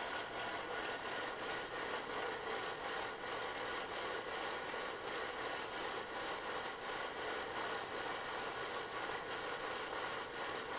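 Two metal fidget spinners, one brass and one copper-and-brass, spinning steadily on their bearings on a wooden desk, giving a continuous whirring hum with a fast fine flutter; the spinning spinners vibrate against the wood, which makes the sound louder.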